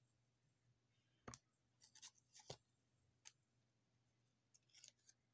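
Faint handling of cardboard game cards: a few short snaps and soft rustles as the cards are slid and flipped in the hands.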